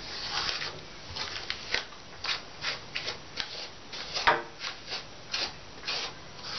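Hands rubbing and stroking a wet cat's fur: a string of short scratchy rubbing strokes, roughly one to two a second, with one louder stroke about four seconds in.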